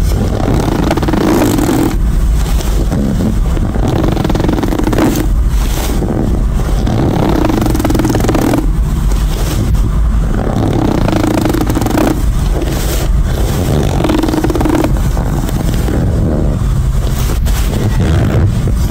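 Hand fart noises: air squeezed out of cupped hands in about five low, buzzy fart-like blasts, each roughly a second long with short pauses between, over a steady low rumble.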